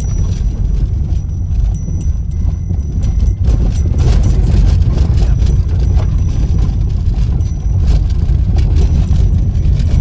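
Car moving slowly over a rough forest dirt track, heard from inside the cabin: a loud low rumble with frequent irregular knocks and rattles as it bumps along.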